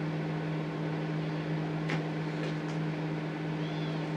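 Microwave oven running at full power with a steady electrical hum. One sharp snap comes about halfway through, with a couple of fainter ticks after it.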